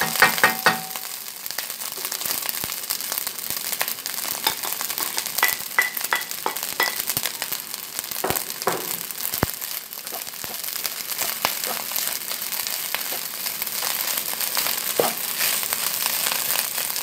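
Fried rice sizzling in a hot nonstick pan, with a wooden spatula scraping and tapping irregularly as chopped dried salted fish is stirred into the rice. A cluster of louder knocks comes in the first second.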